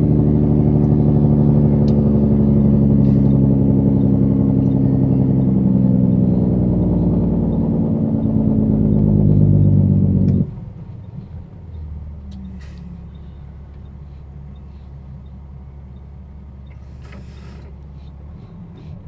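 Semi-truck's diesel engine droning steadily, heard from inside the cab while driving. About ten seconds in the sound drops suddenly to a much quieter, steady low hum.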